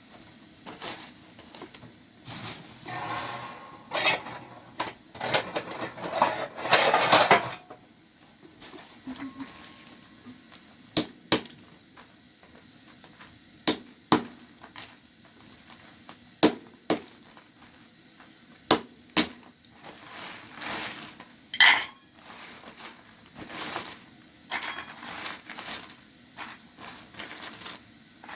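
Pots, dishes and utensils being handled: a series of sharp clinks and knocks, with a stretch of scraping and rattling in the first several seconds.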